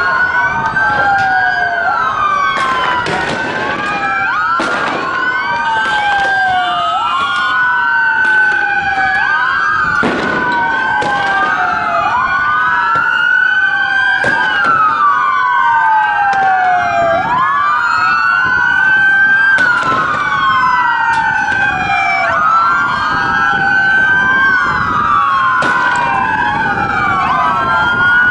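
Several police sirens wailing at once, their rising and falling tones overlapping, with a sharp bang every few seconds.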